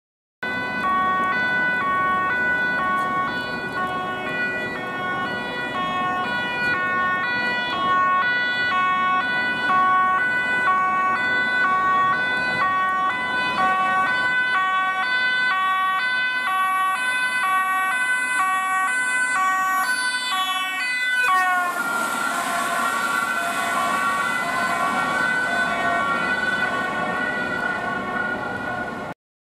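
Two-tone emergency siren on a Dutch fire service vehicle, alternating between a high and a low pitch as it comes up the street; about twenty seconds in its pitch slides down as it passes. After a cut, a second fire vehicle's siren sounds.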